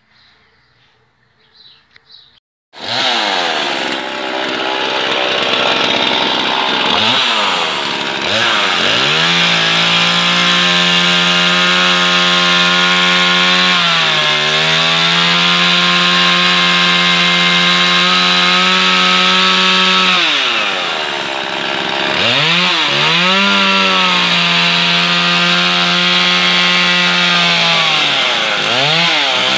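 Faint chirping, then about three seconds in a two-stroke chainsaw engine starts running at high revs, driving a drill attachment through a chain drive as it drills into a steel door frame. The revs hold steady, dip briefly about halfway, fall away and climb again after about twenty seconds, and drop once more near the end.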